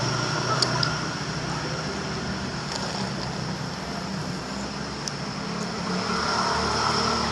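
Steady road traffic noise with a low, even hum and a few faint clicks.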